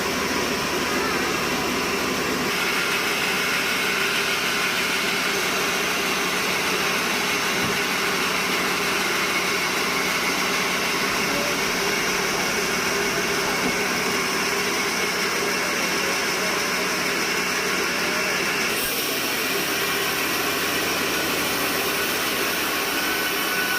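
Sawmill machinery running steadily: a constant mechanical drone with steady whining tones, its tone shifting slightly about two and a half seconds in and again about five seconds before the end.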